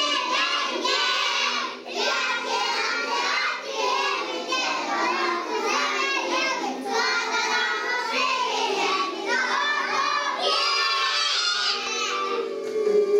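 A chorus of young preschool children singing together.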